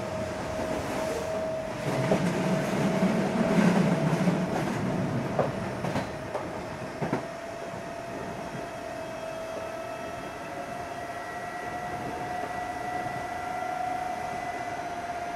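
Running sound of an Odakyu 8000 series electric train car with field-chopper control, on jointed rail: a steady whine that climbs slowly in pitch in the second half as the train gathers speed, over a rumbling wheel noise. A few sharp rail-joint clacks come a little after midway.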